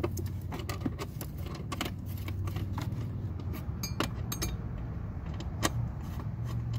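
Socket ratchet clicking in quick, irregular runs as it loosens the 13 mm bolts of a car battery's hold-down clamp.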